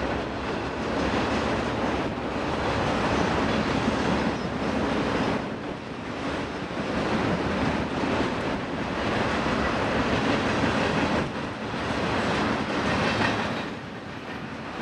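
Tank cars of a Norfolk Southern freight train rolling past: a steady rumble and rattle of steel wheels on the rails, swelling and easing a few times as cars go by.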